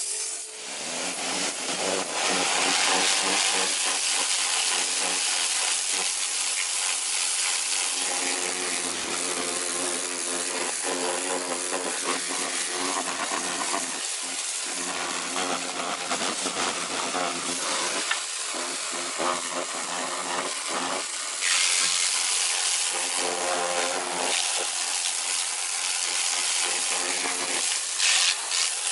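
Kärcher K2.900 Silent home pressure washer running: the hiss and spatter of its high-pressure water jet striking a utility sink basin, with the steady hum of the electric pump motor underneath. The spray starts right at the beginning and keeps on, getting brighter for a while past the middle.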